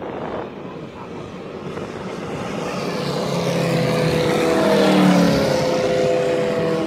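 Several model Wilga aircraft with Moki five-cylinder radial engines flying past together. The engines grow louder to a peak about five seconds in, then their pitch drops as the planes go by.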